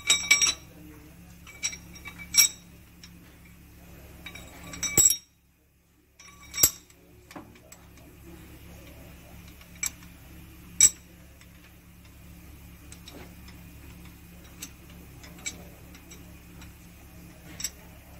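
Steel tools and small valve parts clinking against the cylinder head of a WD615 truck diesel engine during valve-train reassembly: separate sharp metallic clinks a second or a few seconds apart, over a low steady hum.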